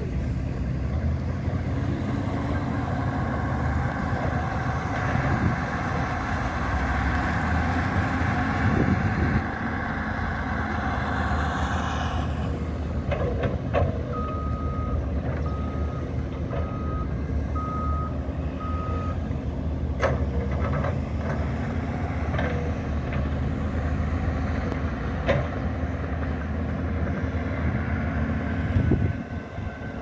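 Heavy earthmoving machinery running, a steady diesel engine drone. Near the middle a reversing alarm beeps five times, about a second apart, and a few sharp knocks follow later.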